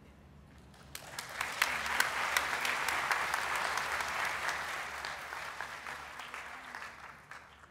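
Audience applauding, with many hands clapping. The applause starts about a second in, builds quickly, and fades away toward the end.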